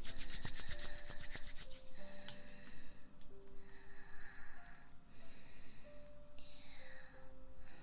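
Close-up ASMR breathing into the microphone: soft breaths about a second long, five or so in a row, over soft background music with long held notes. At the start there is a brief run of quick rubbing strokes close to the microphone.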